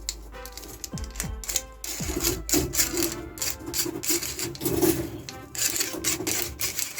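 Rapid irregular clicking and rattling of a tape measure's plastic drum and housing, turned by hand to wind its coil spring, over background music.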